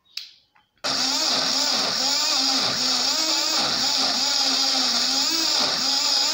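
Six-blade rechargeable portable juice blender switched on: its motor starts suddenly about a second in and runs steadily at one pitch, blending pepper with water.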